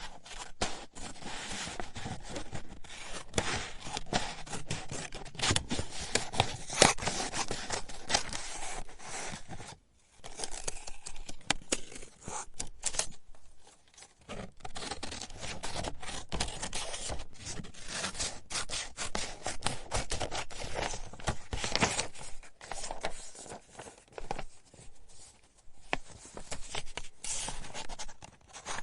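Scissors cutting paper: rapid snipping and rasping strokes in long runs, broken by brief pauses about a third of the way in and again near the middle.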